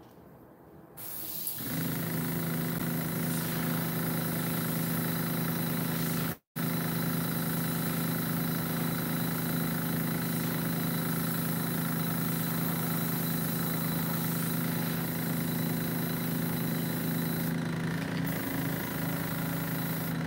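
A small airbrush compressor, set at 30 PSI, starts about a second in and runs with a steady hum, under the hiss of the airbrush spraying paint. The sound cuts out completely for an instant at about six and a half seconds, then carries on.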